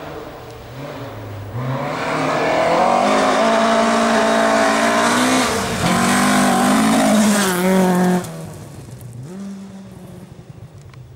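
A rally car approaching and passing at speed, its engine held at high revs, loud for about six seconds, with the pitch dropping as it lifts off near the end before the sound falls away sharply.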